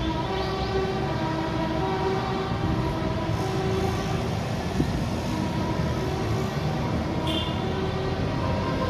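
Tractor convoy passing: a steady low engine rumble with several horns held and sounded over it at different pitches, some coming and going.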